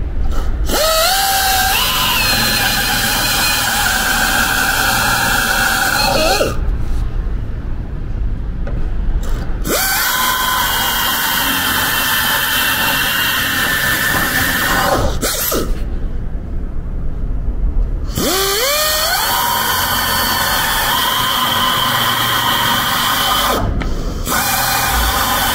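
Power drill boring out spot welds in a van's steel quarter panel: three runs of several seconds each, the motor winding up at each start and then running steadily as the bit cuts through the metal, with short pauses between them and a fourth run starting near the end.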